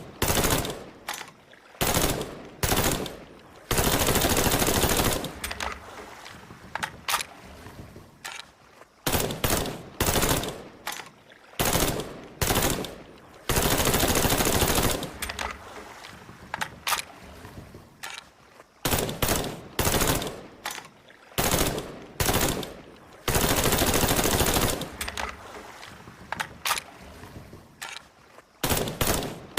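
Colt M16A1 5.56 mm rifle firing: single shots and short bursts, with three long full-automatic bursts of about a second and a half each, spaced about ten seconds apart.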